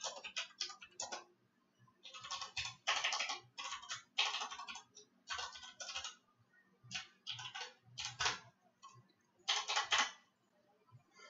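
Computer keyboard typing in short bursts of rapid keystrokes, with brief pauses between the bursts.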